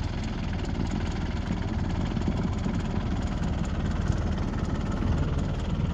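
Tractor engine running steadily as the tractor drives forward, clear of the unhooked backhoe.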